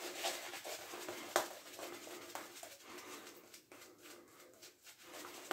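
Vintage Williams 403 shaving brush lathering soap on the face and neck: rapid, soft, bristly swishing strokes, with one sharper click about a second and a half in.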